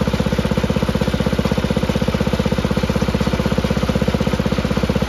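A 1968 Sears Suburban 12's Tecumseh HH120 cast-iron single-cylinder engine running steadily on its own with an even firing beat.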